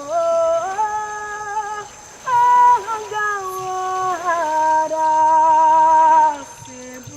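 A woman singing wordless long held notes that slide up and down between pitches, in phrases broken by short pauses.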